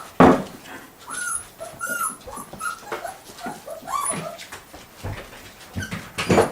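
Pinscher puppies whimpering and squeaking in a string of short, bending cries. A loud knock comes just after the start and another near the end.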